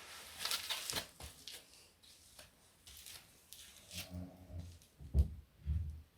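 Wood fire crackling in a fireplace: a cluster of sharp pops in the first second, then scattered snaps. In the second half a low rumbling comes and goes, with a brief low thump a little after five seconds in.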